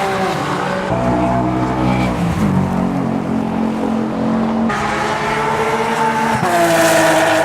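Cars' engines running hard on a racetrack, the pitch of each rising and falling as they go by, with another car coming through about five seconds in.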